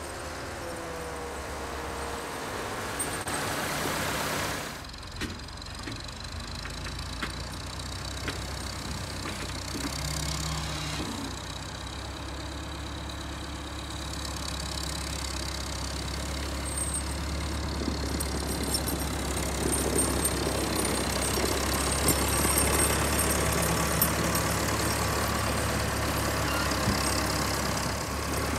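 Old Volvo BM tractor's engine running steadily as it plows snow, growing louder as the tractor comes close near the end.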